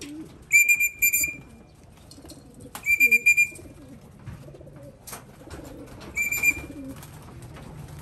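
Electronic pigeon-race clocking system beeping in short, loud, high beeps: a pair about half a second in, one near three seconds and one past six seconds, as chipped racing pigeons are registered at the loft trap. Pigeons coo softly underneath.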